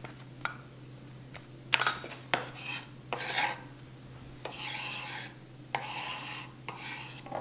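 A tube of refrigerated crescent roll dough being opened: its paper wrapper peeled and torn, then a knife scraped along the cardboard tube, giving about four short rasping scrapes and a few light clicks.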